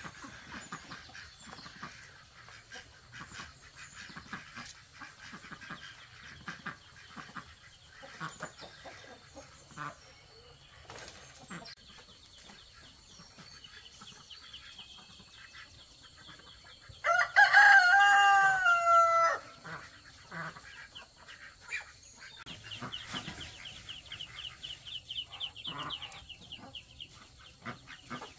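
A rooster crowing once, a little past halfway, a single call of about two and a half seconds that falls in pitch at its end. Quieter scattered small sounds lie around it.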